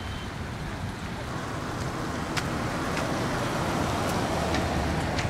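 A road vehicle passing, its tyre and road noise swelling over a few seconds, over a steady low outdoor rumble; a few light clicks.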